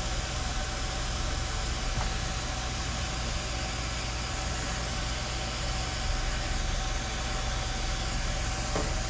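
Steady background hum and hiss, with two faint ticks, about two seconds in and near the end.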